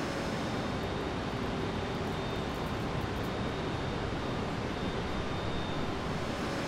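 Steady machinery noise, an even rushing sound at a constant level with a faint high whine running through it.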